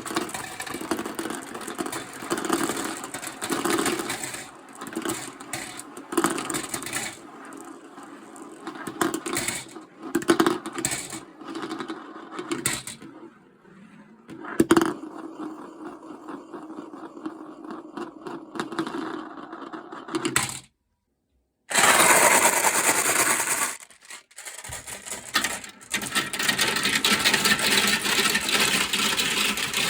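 Marbles rolling and rattling down plastic marble-run track, with scattered sharp clicks as they drop and strike the pieces. The sound cuts out completely for about a second about two-thirds through, then returns with a loud rush and continues as steady rolling.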